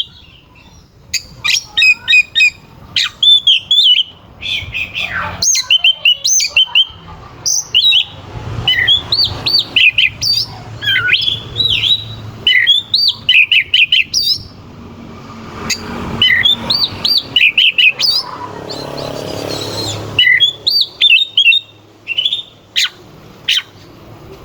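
Oriental magpie-robin (kacer) in full, agitated song: rapid bursts of sharp whistles, chirps and harsh clicking notes, broken by short pauses. This is the kind of excited song kept birds are played to provoke rival males.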